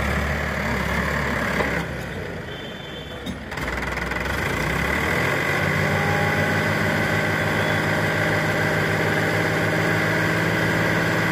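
Sonalika diesel tractor engine running while its hydraulics tip up the loaded trailer to dump the soil. After a quieter stretch about two seconds in, it settles into a steady, even run from about five seconds in.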